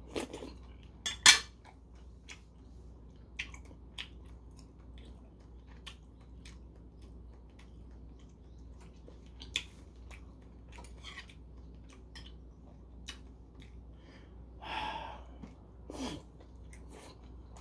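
A person eating soup: chewing with scattered small mouth clicks, and a sharp clink of a metal spoon against a porcelain soup bowl about a second in, the loudest sound. A louder short mouth sound follows near the end as a dumpling is bitten.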